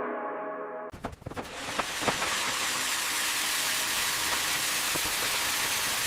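A ringing gong-like tone fades out, and about a second in it gives way to a steady hiss, with a few clicks and knocks in its first second or so.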